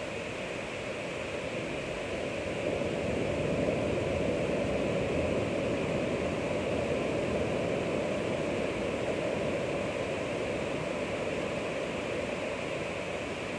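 Ocean waves washing on the shore as a steady rush of surf, swelling about three seconds in and slowly easing off.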